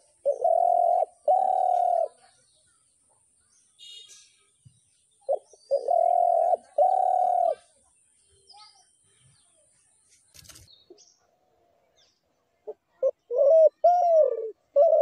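A dove cooing: a short note followed by two long low coos, repeated about five seconds later, then a quicker run of short arching coos near the end. Small birds chirp faintly in the background.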